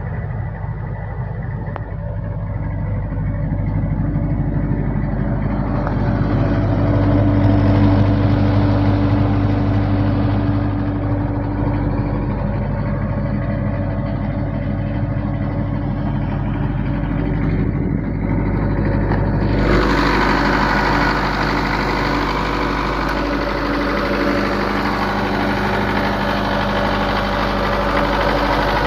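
Isuzu diesel engine of a 25 kVA silenced generator set running at a steady speed. About two-thirds of the way through, the sound suddenly becomes brighter and noisier.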